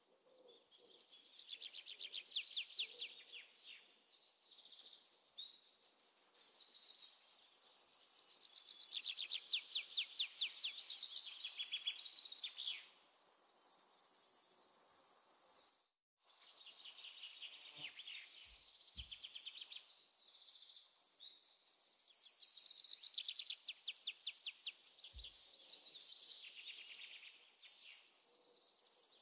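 Songbirds singing in repeated bouts of fast trilled phrases, with a steady high chirring of crickets or other insects joining in about halfway through.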